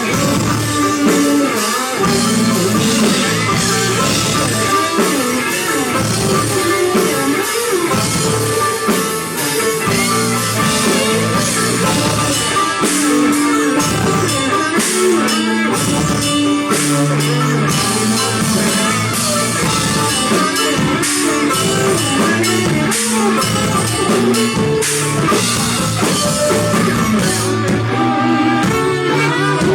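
Live rock band playing an instrumental passage: guitar over bass and drum kit, with no singing.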